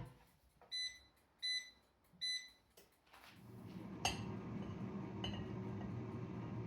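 Air fryer's control panel beeping three times as it is set, then its fan starting and running with a steady hum, with two light clicks along the way.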